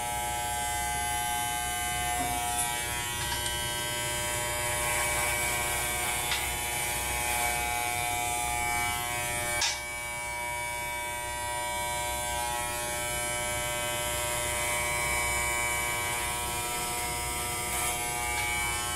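A corded electric hair clipper running with a steady buzz as it is drawn through long hair, with a few short clicks along the way.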